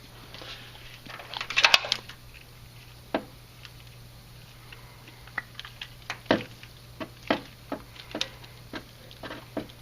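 Metal clinks, rattles and knocks of hand tools and brake parts being handled while a brake caliper bracket is fitted back onto the steering knuckle. A cluster of rattling clicks about a second and a half in is the loudest part, followed by irregular single clicks and taps.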